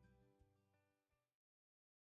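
Closing background music, very faint and fading out, ending in silence a little after a second in.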